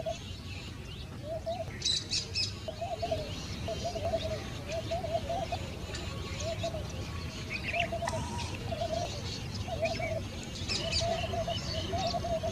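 Birds calling: a short, low-pitched call repeated about once a second, with clusters of high, quick chirps from small birds about two seconds in and again near the end.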